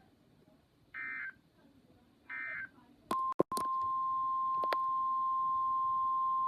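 Two short bursts of NOAA Weather Radio SAME digital data tones, the end-of-message code closing the previous alert. About three seconds in, the 1050 Hz Weather Radio warning alarm tone starts, breaks off briefly with a couple of clicks, then sounds as one steady tone.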